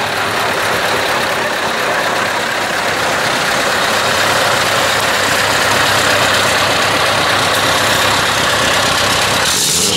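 Heavy truck diesel engines idling steadily through side-exit exhaust pipes, the V8 Scania-type lorry pipes of a truck show.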